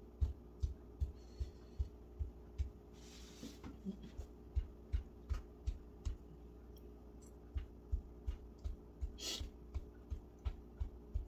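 A person chewing food close to the microphone: soft low thumps with faint wet clicks, about two to three chews a second, pausing briefly in the middle before resuming.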